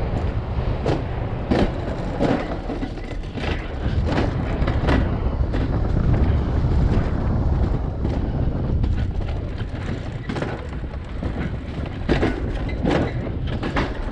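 Alpine coaster sled rolling along its steel tube track with a steady rumble. Its wheels clack over the track joints about once every three-quarters of a second.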